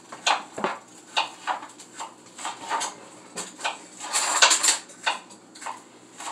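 Kitchen clatter: dishes and utensils knocking and clinking in a run of short, uneven clicks, with a louder clatter about four seconds in.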